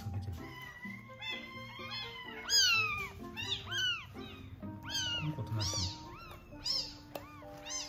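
Tiny rescue kittens, about one to two weeks old, crying over and over in shrill calls that rise and fall, about two a second: hungry cries at a milk feeding. Background music with long held notes plays underneath.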